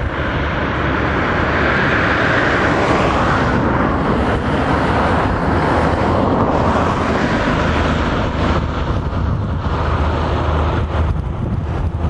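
Road traffic passing: steady tyre and engine noise of vehicles going by, loudest in the first few seconds, with a low engine hum coming up later.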